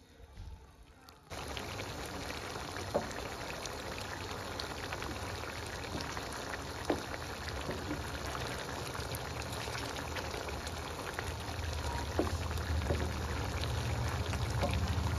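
Chicken curry gravy simmering hard in a metal pan: a steady bubbling crackle with a few sharper pops, starting suddenly about a second in, with a low rumble growing near the end.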